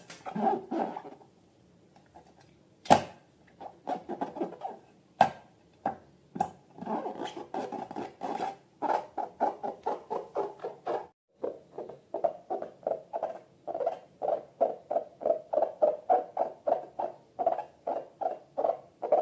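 Slime being squeezed and worked by hand: a run of short sticky squelches, irregular at first and then about three a second. Two sharp clicks come in the first third, the first the loudest.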